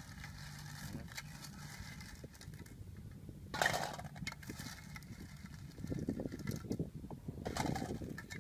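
Metal spoon scraping in a metal pot and cooked shellfish in their shells clattering into a metal bowl. The loudest clatter comes about three and a half seconds in and another near the end, among lighter scrapes and clicks.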